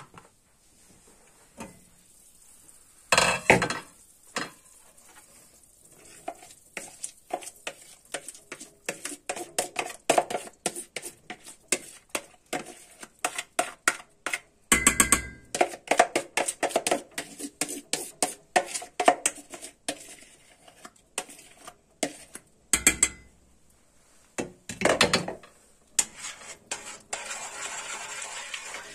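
A metal spoon clinking and scraping, first in a plastic bowl of yogurt mixture, then against a stainless-steel pot as the mixture is scraped into the soup and stirred. It is a long run of quick clinks with a few louder knocks.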